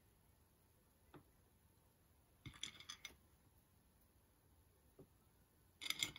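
Near silence broken by a few brief clusters of small clicks and crackles of handling: candy corn pieces being picked from a plate and pressed into the frosting of an Oreo cookie. The louder clusters come about two and a half seconds in and again near the end.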